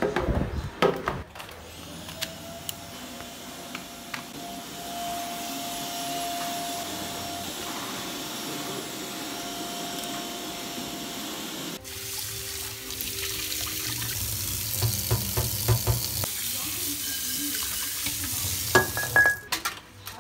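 Light background music. In the second half, water runs from a kitchen tap as a bowl is rinsed in the sink, with a few clinks near the end.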